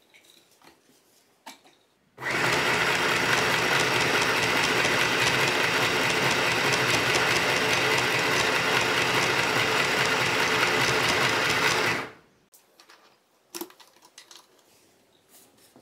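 Easymaxx compact sewing machine running steadily for about ten seconds, its needle stitching at a rapid even rhythm. It starts about two seconds in and stops suddenly, followed by a few faint clicks of handling.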